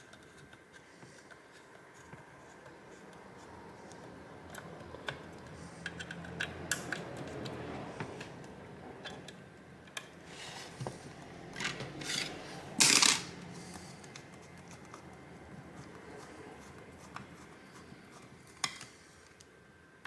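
Small screws being driven by hand into a graphics card with a precision screwdriver: scattered light clicks and scratching of the driver bit, screws and metal bracket, with one louder noise lasting about half a second partway through.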